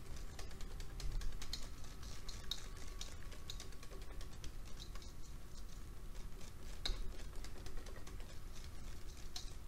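Wire balloon whisk beating thick crêpe batter in a stainless steel bowl: a steady run of light clicks and taps as the wires strike the bowl, with the wet slap of the batter.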